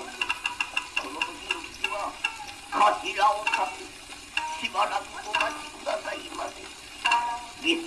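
Rōkyoku (naniwabushi) narration, a man's half-spoken, half-chanted voice in short phrases, played from a 78 rpm shellac record on a gramophone. The sound is thin, with no bass, and a steady crackle and clicking of record surface noise runs under the voice.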